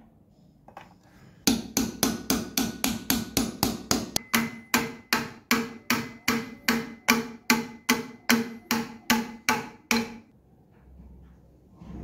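Hammer striking metal, a run of about thirty blows that are quicker at first and then settle to about three a second, each with a short metallic ring: parts of an old barn padlock being knocked apart.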